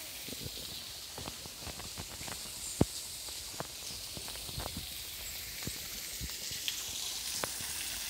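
Steady hiss of a small waterfall, with scattered, irregular sharp clicks and taps over it. The loudest tap comes near three seconds in.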